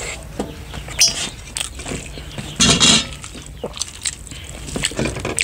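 Close-miked eating sounds: mouth clicks and smacks of chewing, with a louder noisy burst lasting about half a second near the middle.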